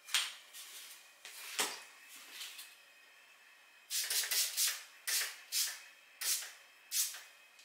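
Toiletries being handled at a bathroom sink: a series of about eight short, sharp, hissy bursts, several close together about four seconds in, with quiet between.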